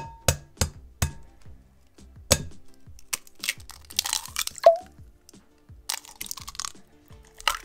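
An egg tapped sharply against the rim of a glass mixing bowl, four quick knocks in the first second and another about two seconds in, some with a brief glassy ring. This is followed by the crackle of the shell being pulled apart and the egg dropping into the bowl, over soft background music.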